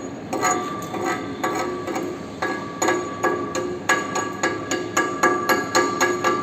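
A hammer striking a steel rotor in quick repeated blows, about three to four a second with a short pause near two seconds in; the metal rings with the same tones after every hit.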